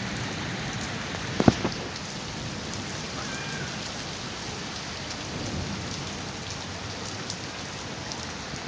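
Steady autumn rain falling, with a few sharp drip-like taps about a second and a half in.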